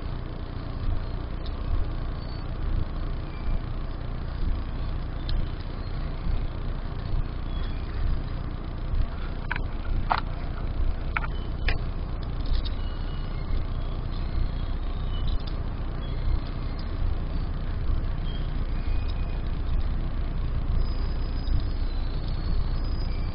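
A low steady rumble, with a handful of light clicks a little before halfway through as the small metal mini tripod is handled.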